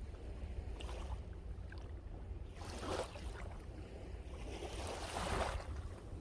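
Ocean waves washing in on a beach, two broken waves hissing up about three seconds in and again near the end, over a steady low rumble of wind on the microphone.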